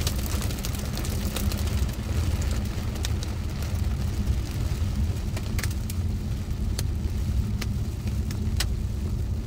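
Inside a moving car: a steady, low engine and road rumble, with scattered sharp ticks throughout.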